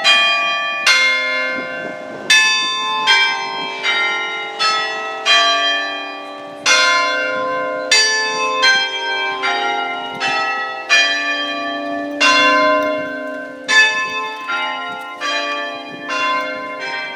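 Church bells chimed on an Ellacombe apparatus: hammers strike the stationary bells one at a time, playing a tune on six of its eight bells. The strikes come about one and a half a second, each bell ringing on under the next.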